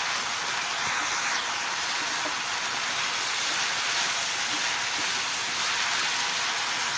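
Chicken, onion and capsicum masala sizzling steadily in hot oil in a non-stick pan as it is stirred with a wooden spatula.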